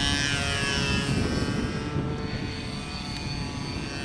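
OS Max .46 AX two-stroke glow engine of a radio-controlled sport airplane running at high throttle in flight. Its pitch drops right at the start as the plane passes by, then holds steady.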